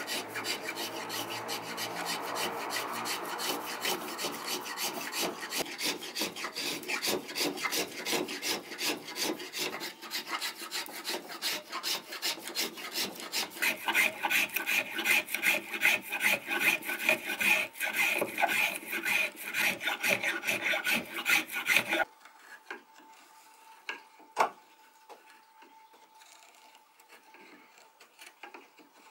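Brass spokeshave shaving an oak spoon handle in rapid back-and-forth strokes, each cut a rasping shave. It stops abruptly about three-quarters of the way in, leaving a faint quiet broken by one sharp tap.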